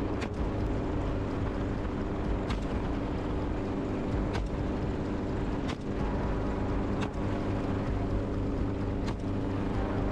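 Helicopter running steadily, its engine and rotor giving a continuous hum made of several low tones, with a few faint clicks.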